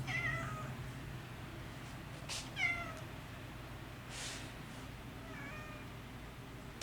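Domestic cat meowing three times, a couple of seconds apart, each call short and falling slightly in pitch.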